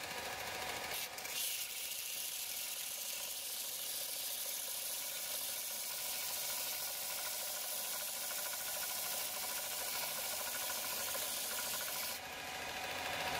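Bench belt sander running with a workpiece held flat against the moving abrasive belt, giving a steady grinding hiss over the motor's hum. The hiss briefly changes about twelve seconds in.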